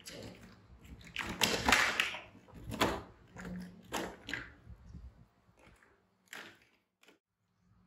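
Plastic toy construction vehicles knocking and clattering against each other and their cardboard box as they are handled and lifted out. A run of sharp knocks and scrapes, dying away in the second half.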